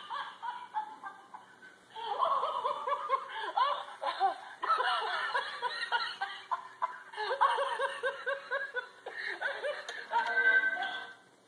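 Battery-powered laughing plush cat toy playing recorded laughter through its small speaker as it rolls and spins about. The laughter comes in repeated bursts that start and stop abruptly, and it cuts off suddenly near the end.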